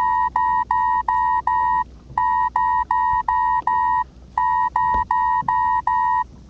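Electronic beeper sounding three runs of five short beeps, about three beeps a second, all on one steady high pitch, with a short pause between runs.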